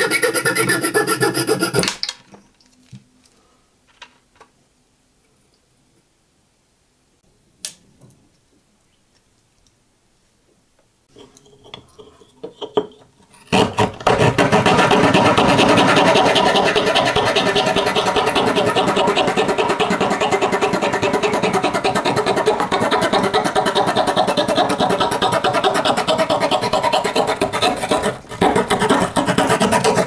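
The small wood saw of a Victorinox Swiss Champ pocket knife cutting a wooden block in fast back-and-forth strokes, a steady rasp that starts a little before halfway and runs almost to the end. Before it comes a short loud scrape of the knife's metal file on a steel pin, then a long near-quiet stretch with a few light clicks.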